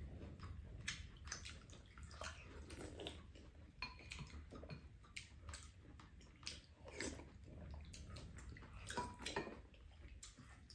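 Close eating sounds from two people: soup sipped and slurped off spoons a few times, with wet chewing and small clicks of spoons against bowls.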